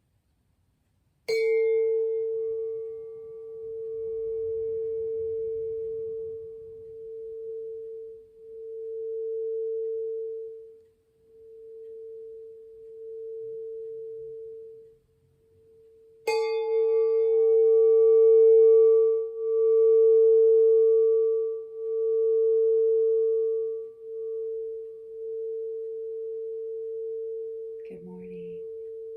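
A singing bowl struck twice, about fifteen seconds apart. Each strike rings on in one long, steady tone that swells and fades in a slow pulsing wobble as it dies away.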